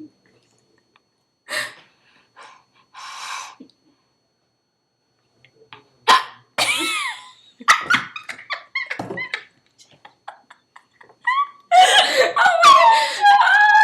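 A young girl's high-pitched squeals and yelps, then a burst of giggling near the end.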